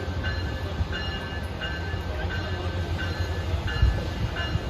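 Passenger train in the station: a steady low diesel rumble, with a bell ringing in short, evenly spaced strikes about one to two a second.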